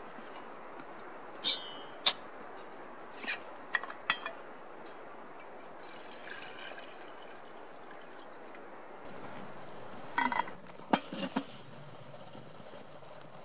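Water poured from a bottle into a small metal kettle, with several sharp metal clinks of the bottle and kettle.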